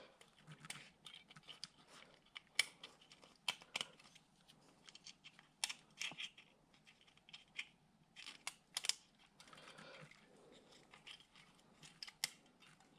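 Small metal parts of an AR-15 magazine release clicking and scraping as the button is pushed on against its spring and turned by hand: faint, irregular clicks, a few sharper ones.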